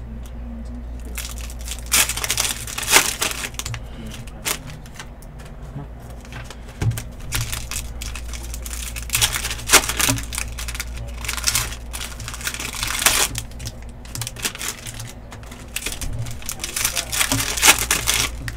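Foil trading-card pack wrappers crinkling and tearing as they are ripped open by hand, in irregular crackles throughout, over a low steady hum.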